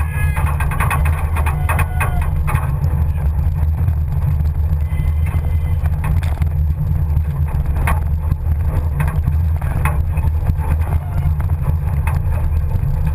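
Pinzgauer off-road truck driving along a woodland trail, heard from its open rear bed: a steady low engine drone with scattered clunks and rattles from the body over bumps.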